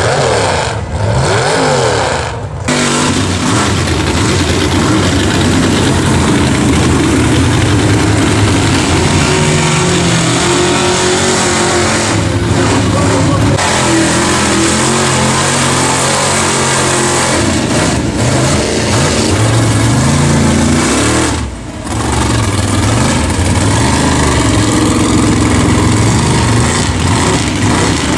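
Big-block V8 engine of a mega mud truck revving hard, its pitch rising and falling again and again as it is driven through deep mud.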